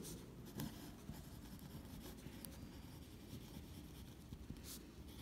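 Pen scratching faintly on notebook paper as a word is written out by hand, in short irregular strokes.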